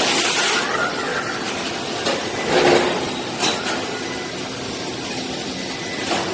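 Automated car-part welding and part-transfer cell running: a steady machine hum with a faint high tone, a hiss that stops about half a second in, a louder noisy clunk-like sound near the middle, and a short hiss just after it.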